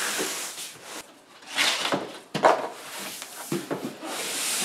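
A flat-pack cardboard box of furniture panels being dragged over carpet and its end flap pulled open: scraping and rustling of cardboard, with a few knocks, the sharpest about two and a half seconds in.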